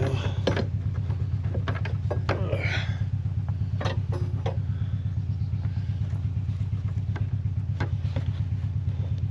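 A steady low machine hum with a fast, even pulse, with scattered clicks and knocks of metal and plastic parts being handled.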